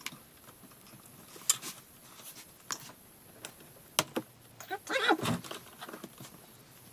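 Small, scattered clicks and taps of a low-profile CPU cooler and its mounting hardware being handled, with a short scrape about five seconds in.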